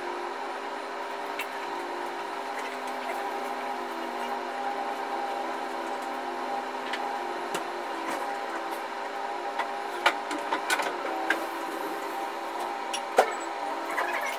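High-reach demolition excavator running with a steady engine and hydraulic drone as its crusher jaws work into the top floor of a building. From about ten seconds in, a string of sharp cracks and knocks as concrete breaks and debris falls.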